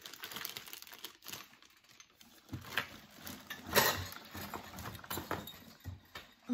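Rummaging through a cardboard box of Christmas decorations: irregular knocks, clatters and rustles of wicker baskets, light strings and a plastic bag of ornaments being shifted by hand, the loudest a sharp knock a little under four seconds in.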